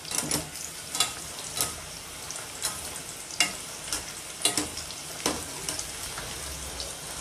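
Cornflour-and-egg-coated boneless chicken pieces deep-frying in medium-hot oil in a steel kadai, a steady sizzle while a wire skimmer stirs them, with scattered sharp clicks about once a second.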